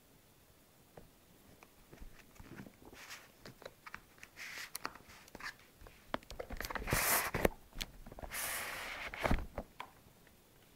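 Cardboard wand-box packaging being handled: scattered clicks and taps, then two longer scraping rushes, the first about six and a half seconds in and the second about eight and a half seconds in.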